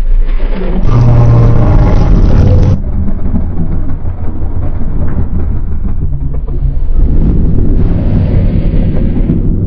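Edited monster sound effects: a loud, deep, layered roar from about one to three seconds in, then a heavy low rumble that keeps going, made of spliced clips that change character abruptly.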